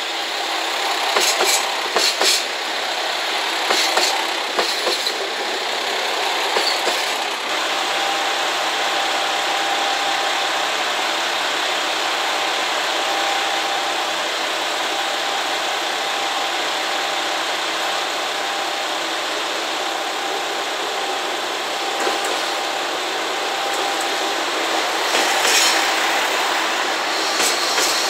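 JR Shikoku 2000 series diesel railcar train running past the platform: wheels clicking over rail joints in quick pairs during the first few seconds, then a steady running noise with a faint whine as the train draws in, and more wheel clicks near the end.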